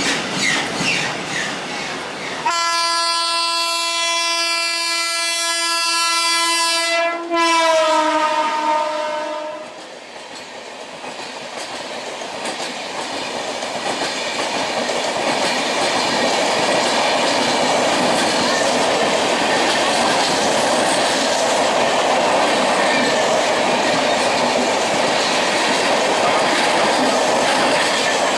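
Train horn sounding one long steady blast for about five seconds, then dropping slightly in pitch as the locomotive passes and fading out. It is followed by the rising, steady rumble and clickety-clack of the train's coaches running past.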